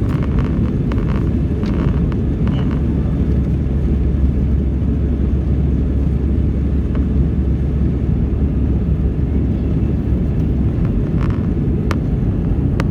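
Airbus A320's jet engines running: a loud, steady low rumble, with a deeper drone strongest from about three to nine seconds in.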